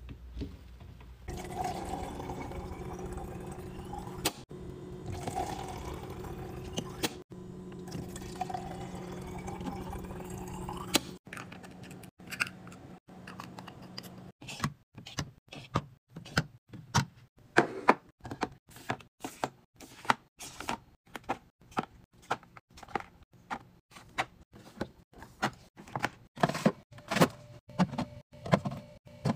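Water running into bottles in three fills of about three seconds each, the pitch rising as each one fills. This is followed by a long run of quick clicks, taps and knocks as plastic bottles, caps and containers are handled and set down on fridge shelves.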